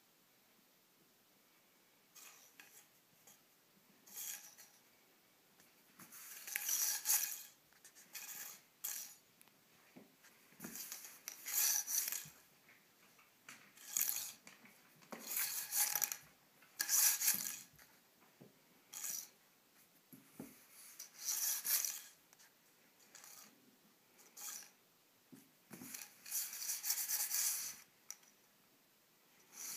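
A plastic bendy drinking straw scraping and skittering on a hardwood floor in the gap under a door as a cat bats at it, in irregular scratchy bursts of a second or so with short pauses between.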